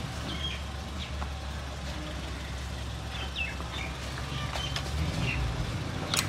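A car engine idling with a steady low rumble, with small birds chirping now and then.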